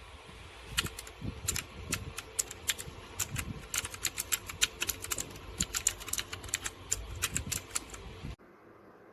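Typing on a DareU EK87 V2 mechanical keyboard: quick, irregular keystroke clicks, several a second, which stop abruptly about a second before the end.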